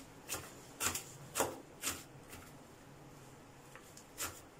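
Kitchen knife chopping radish leaves and green onions on a plastic cutting board: sharp taps about twice a second. They pause for nearly two seconds, then start again about four seconds in.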